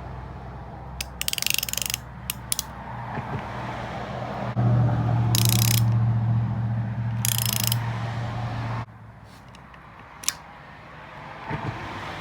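Hand ratchet clicking in several short, quick runs, turning a triple-square bit on a bolt. A steady low hum comes in about four and a half seconds in and cuts off suddenly near nine seconds.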